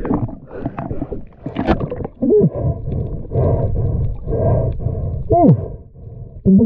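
Muffled underwater sound of a snorkeler working on the sea bottom: water churning and breath noise that comes in repeated swells, with two gurgling sounds that fall in pitch, about two and five seconds in.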